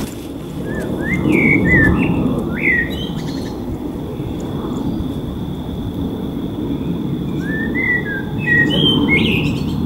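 A songbird singing two short bursts of chirps and quick whistled glides, one in the first few seconds and one near the end, over a steady low background rumble.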